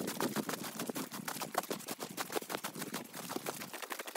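Footsteps crunching through snow, a fast run of crackling crunches.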